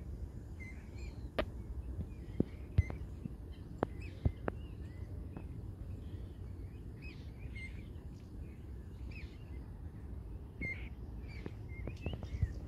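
Small waterbird chick cheeping: short high chirps repeated every second or so. A few sharp clicks come in the first half, over a steady low rumble.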